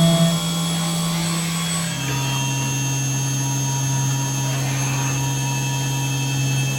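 A machine tool's electric motor running with a steady hum, its pitch stepping down about two seconds in.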